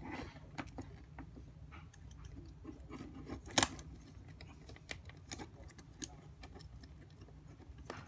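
Light clicks and taps of a relay module and a perfboard circuit board being handled and fitted together, with one sharper knock about three and a half seconds in, over a faint low hum.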